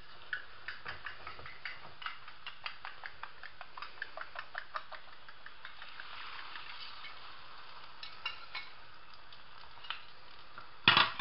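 A fork clicks quickly against a bowl, beating eggs. Then the beaten eggs are poured into hot oil in a frying pan of potato slices and sizzle briefly. Near the end there is one loud clunk as the bowl is set down on a plate.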